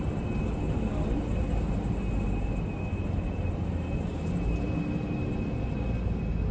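A U-Haul moving truck's engine running, heard inside the cab as a steady low rumble with a faint, steady high whine above it.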